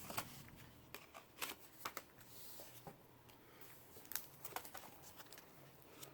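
Faint rustling and soft, irregular clicks of paper sticker sheets and small packets being handled.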